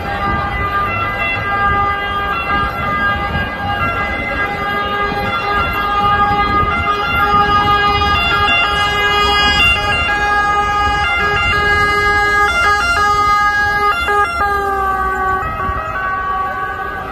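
An emergency vehicle's siren holding one steady, unwavering tone over street and crowd noise; about fourteen seconds in its pitch dips slightly and it grows fainter.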